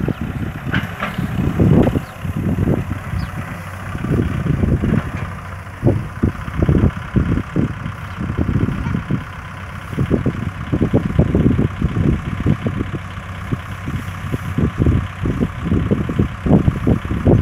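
Kubota farm tractor's diesel engine running at idle while the tractor stands, an uneven low rumble.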